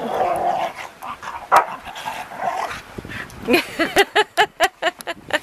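Two dogs play-fighting in the snow. A rough growl comes in the first second, and near the end there is a quick run of about eight short, yapping barks.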